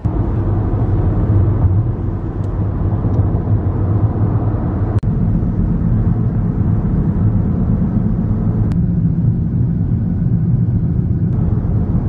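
Car moving at road speed, heard from inside the cabin: a steady low rumble of engine and tyre noise.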